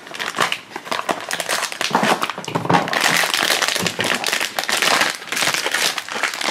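Crinkling and crackling of blind-box toy packaging being handled and opened by hand.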